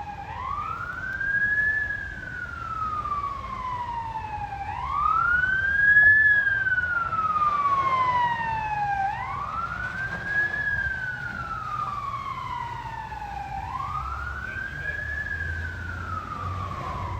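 Emergency vehicle siren on a slow wail: each cycle rises quickly and then falls slowly, about four cycles, one every four to five seconds, over a low rumble.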